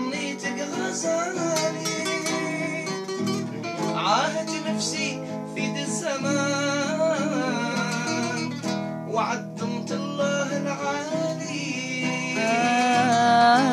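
Classical guitar being plucked and strummed, with a voice singing with wide vibrato, most strongly near the end.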